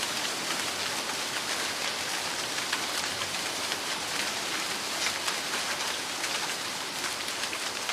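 Heavy rain falling steadily, a dense patter of many small drop impacts.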